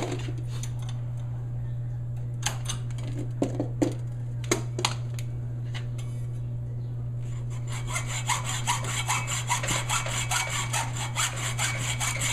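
A few separate knocks of handling, then from about seven seconds in a saw cutting through a metal door-hinge lock pin in quick, even back-and-forth strokes.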